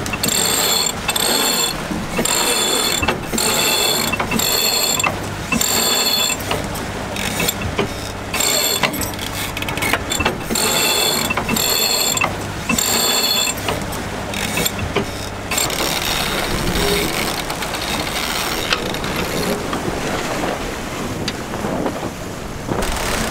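Sailboat cockpit winch being cranked to haul in a line, its pawls ratcheting in ringing bursts about once a second, with a short pause near the middle; the cranking stops about two-thirds through. A low steady hum runs under it and stops at about the same time, leaving wind and water noise.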